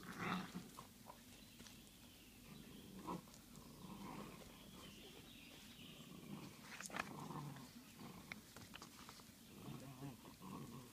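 Wolf pups giving short, faint, scattered vocal sounds, with a few sharp clicks between them.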